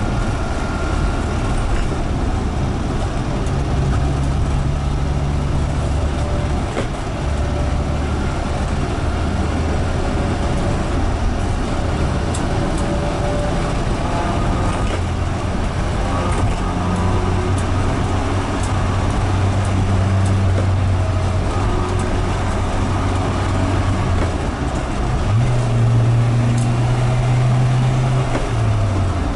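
A 1999 Subaru Sambar Van's small four-cylinder engine and road noise on a test drive on ordinary roads. The engine note steps up and down with the gear changes of its 5-speed manual, rising about 25 seconds in and dropping just before the end.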